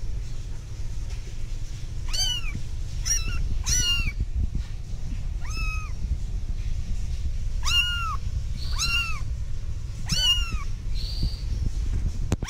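One-month-old kittens mewing: about seven short, high-pitched mews at uneven intervals, each rising then falling in pitch, starting about two seconds in. A steady low rumble runs underneath.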